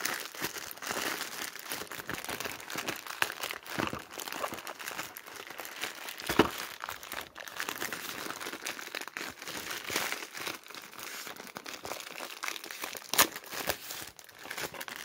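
Plastic parcel packaging crinkling and rustling as it is handled and pulled open by hand, with a couple of louder crackles.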